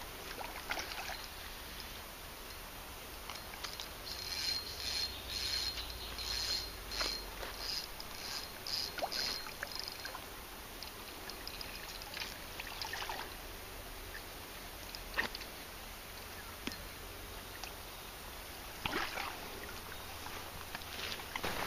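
A hooked carp splashing at the water's surface in a run of short, irregular splashes, with more splashing near the end as it is drawn into the landing net.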